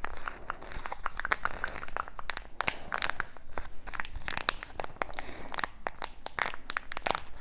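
Packaging being crinkled and torn open by hand, with a dense run of irregular crackles and sharp snaps.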